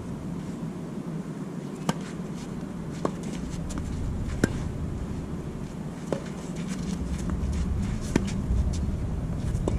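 Tennis ball being hit during a rally: about six sharp pops of racket strokes and ball bounces, one every second or two, the loudest about four and a half seconds in. A steady low rumble runs underneath.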